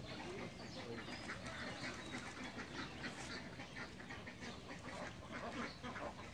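A flock of domestic ducks quacking, many short overlapping calls that run on without a break.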